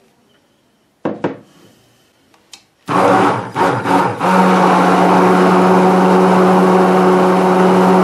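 An immersion (stick) blender knocks against the bowl, then its motor starts about three seconds in and runs steadily in the soap batter, with a brief dip before settling. It is blending the freshly poured lye solution into the oils to emulsify the soap.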